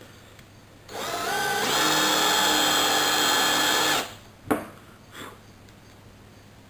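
Power drill with a Forstner bit boring a shallow hole in a wood block. The motor spins up about a second in, rising in pitch, then runs at a steady high whine for about two seconds and stops abruptly. A sharp click follows half a second later.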